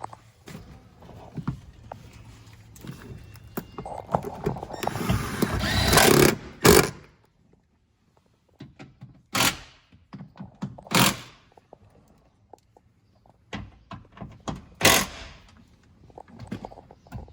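Knocks and thunks of a car-audio sound bar and its mounting hardware being handled and fitted inside a Jeep cabin. A scraping rustle builds for about two seconds and ends in a sharp knock, followed by three or four more single knocks with quiet gaps between.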